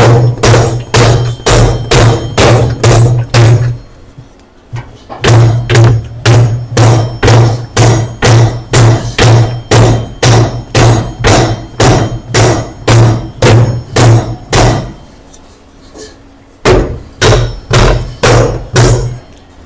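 Hammer blows on a Samsung top-load washing machine's gearbox, knocking the rust-seized unit down out of the tub. The blows come steadily about two a second, each with a short low ring, in three runs with brief pauses about 4 seconds in and about 15 seconds in.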